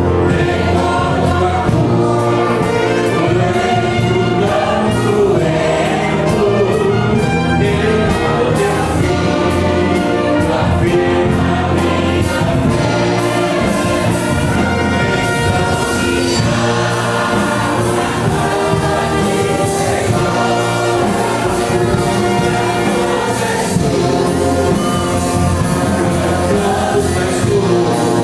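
Church orchestra with brass playing a hymn while many voices sing along in chorus.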